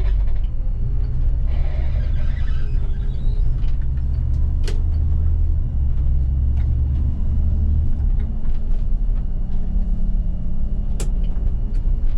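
City bus running, heard from inside: a steady low engine and road rumble, with a brief hiss about two seconds in and a couple of sharp clicks or rattles.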